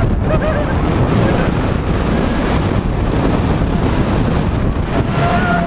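Loud wind buffeting the microphone, a steady low rumble throughout.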